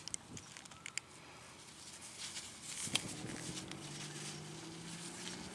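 Faint small clicks as gloved hands work the old festoon bulb out of its clips in the plastic license plate lamp housing. From about three seconds in, a steady low hum joins.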